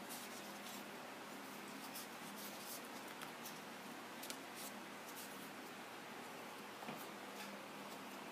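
Faint rustling, scratching and small clicks of earphones, their cable and a foam-lined case being handled, over a steady faint hiss and low hum. Two clicks, about four and seven seconds in, stand out a little.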